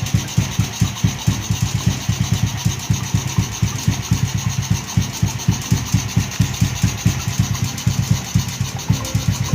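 Honda Wave's single-cylinder four-stroke engine idling steadily, with an even, fast pulse of about seven or eight beats a second.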